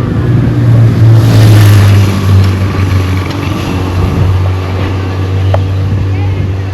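Motor vehicle engine running with a steady low hum that drops a little in pitch about a second in, with a short rush of noise as it goes past.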